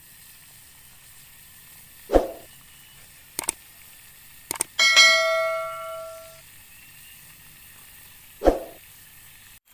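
Sound effects for an animated subscribe button: two quick double clicks, then a notification bell ding that rings for about a second and a half. A short thump comes about two seconds in and again near the end, over a steady hiss.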